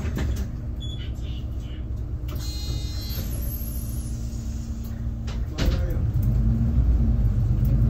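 Cabin sound of a low-floor city bus under way: a steady engine and road rumble with a low hum. About two and a half seconds in there is a short high-pitched tone, and about five and a half seconds in a knock, after which the rumble grows louder.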